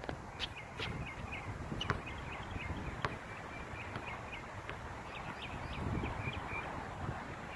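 A basketball striking the hoop and bouncing on an outdoor hard court: a few sharp knocks in the first three seconds. Small birds chirp over and over throughout, with a steady low rumble underneath.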